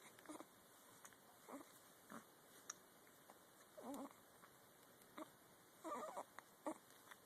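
Baby hiccuping: short, sudden hiccups every second or so, a few carrying a little squeaky voiced sound, the longest two about four and six seconds in.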